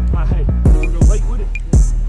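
Hip hop track: a rapper over a deep bass and a hard-hitting drum beat.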